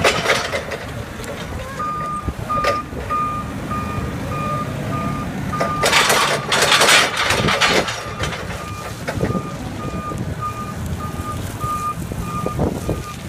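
Propane-fuelled CAT P5000 forklift's engine running as it manoeuvres, with its reversing alarm beeping about twice a second from about two seconds in. A loud rush of noise about six to eight seconds in.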